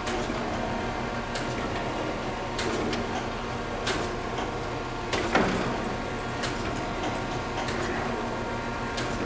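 Kent KGS-84AHD hydraulic surface grinder running in automatic surface-grinding mode: a steady machine hum as the hydraulic table traverses back and forth. Repeated clicks and knocks come as the table reverses and cross-feeds, the loudest a clunk about five seconds in.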